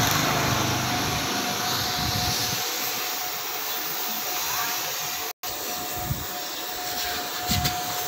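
A machine running steadily, an even hiss with a thin steady whine through it, cut off for an instant about five seconds in.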